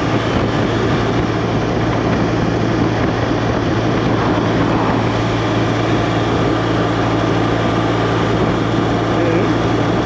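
Motorcycle engine running at a steady cruising speed, with a constant rush of wind and road noise.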